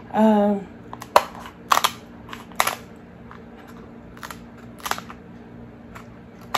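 Kitchen scissors snipping through the hard shell of a cooked Alaskan king crab leg, giving a run of sharp cracks and crunches about a second apart. A brief vocal sound comes just before the first cut.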